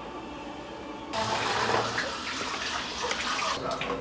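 Running water, as from a tap, that starts about a second in and stops shortly before the end.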